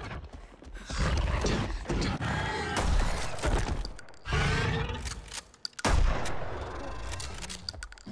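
Film action-scene sound: rifle gunfire in several loud bursts of shots, mixed with heavy thuds, as a police officer fires at a charging creature.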